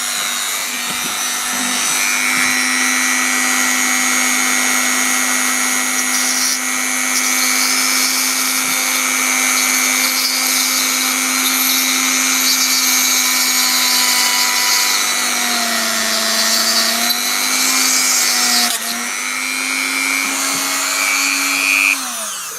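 Dremel rotary tool with a 0.8 mm drill bit running steadily at high speed with a high whine, drilling out a broken hinge screw. The pitch dips and wavers a few times late on, then the motor winds down just before the end.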